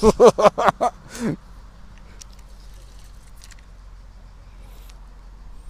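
A man's voice for about the first second and a half, then a low steady hum with a few faint, scattered ticks.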